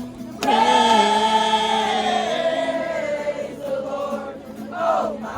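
A group of voices singing together, holding one long note from about half a second in, then moving to lower notes.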